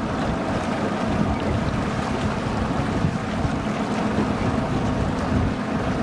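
Outboard motor of a small boat running steadily under way, with water rushing against the hull and wind on the microphone.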